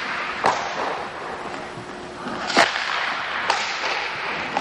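Hockey sticks striking pucks on ice during a passing and one-timer drill: three sharp cracks, about half a second in, the loudest a couple of seconds later and one more a second after that, over a steady hiss.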